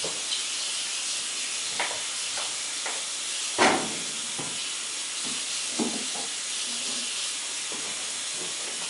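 A steady high hiss, with a few light knocks and clatters of kitchen items being picked up and set down on the counter; the loudest knock comes about three and a half seconds in.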